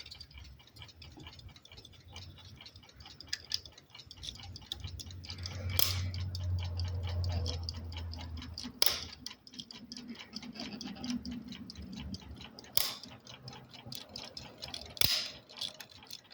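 Flip clocks ticking: a fast, even run of small ticks, with four louder sharp clicks spread through and a low hum for a few seconds in the middle.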